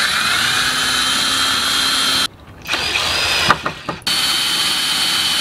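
DeWalt cordless drill driving screws through a metal hanger bracket into wood: the motor whines steadily for about two seconds, stops, a few short clicks follow, and it runs again for the last second and a half.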